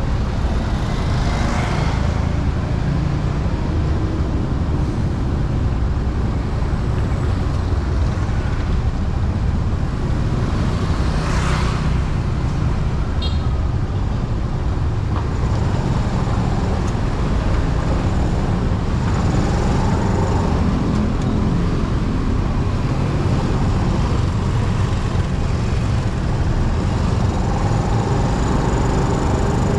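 Steady low rumble of riding on a road, with motor-vehicle engine and road noise throughout. A vehicle swooshes past about a second in and again about eleven seconds in.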